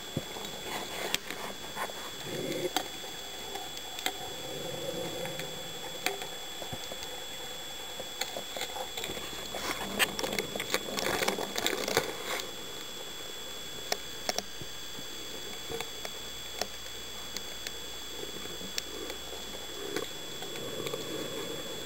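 Underwater sound heard through a dive camera's housing: scattered crackling clicks over a steady hiss, with muffled rushes of divers' breathing and exhaust bubbles now and then, the longest about ten seconds in.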